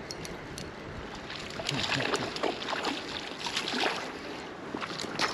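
Creek water flowing steadily, then from about two seconds in irregular splashing and sloshing close by as a hooked trout is brought in to be netted, with a sharp splash at the very end.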